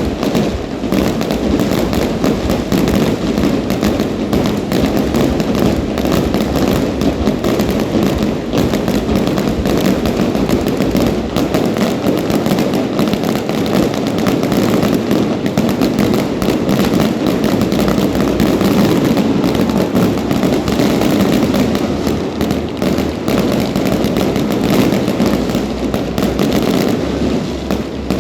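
Fireworks going off in a dense, unbroken barrage of bangs and crackling that stays loud throughout.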